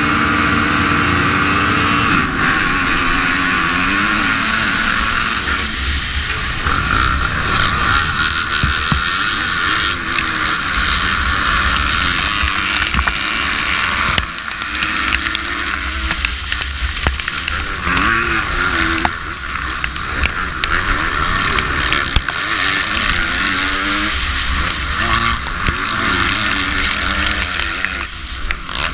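450-class motocross bike engine held at steady revs on the start gate for about the first two seconds, then revving hard and rising and falling in pitch through the gears as it races off with the pack. Heavy wind buffets the on-bike camera microphone, and other bikes' engines are mixed in.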